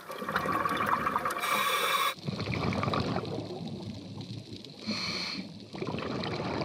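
Scuba diver breathing underwater through a regulator, two breaths. Each is a hissing inhalation followed by a longer bubbling rush of exhaled air.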